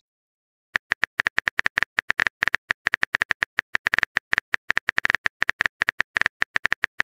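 Keyboard typing sound effect: a rapid, uneven run of short crisp clicks, about eight a second, starting about a second in.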